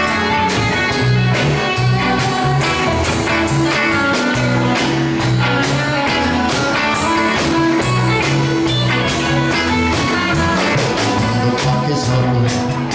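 Instrumental passage of a rock song without singing: guitar over repeating bass notes and a steady drum beat.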